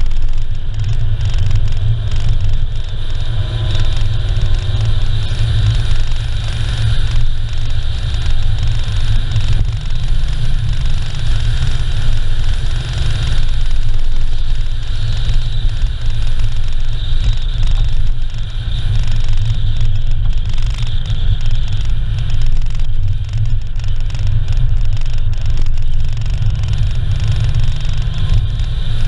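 Car driving steadily along an asphalt road: tyre and wind noise heard as a steady, heavy low noise with a fainter hiss above it, the wind buffeting a camera mounted low on the outside of the vehicle.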